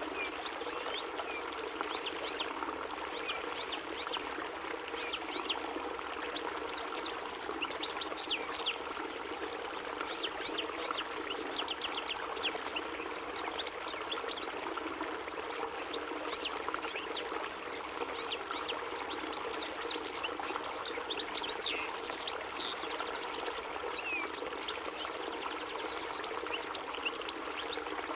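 European goldfinch singing: a long, rapid twittering run of short high chirps and trills. It sits over a steady rushing background noise.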